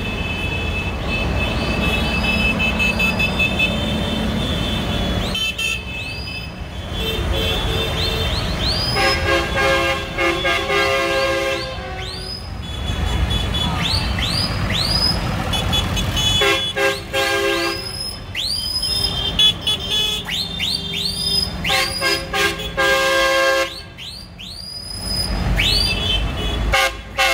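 Tractor horns tooting again and again as the tractors pass, some short blasts and some held for a second or two, over the low running of their diesel engines.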